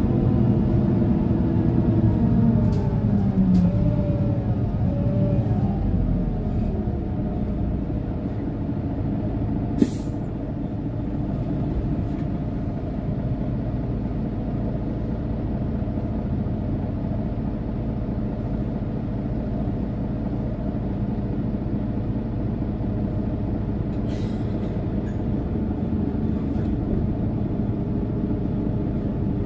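Mercedes-Benz O530 Citaro Facelift city bus under way, heard from inside the passenger cabin: the engine note falls over the first several seconds, then settles into a steady run with rumbling road noise. A single sharp click about ten seconds in.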